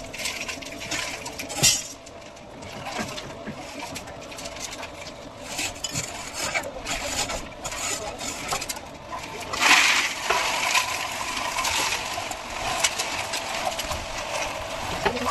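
Hand work on a building site: irregular metallic clinks and knocks of tools and steel, with a louder burst of noise about ten seconds in.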